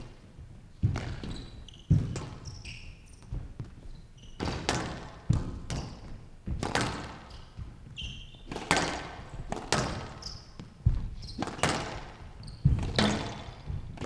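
Squash rally on a glass show court: the ball cracks off rackets and walls about once a second, each hit ringing in the hall. Short shoe squeaks on the court floor come between the hits.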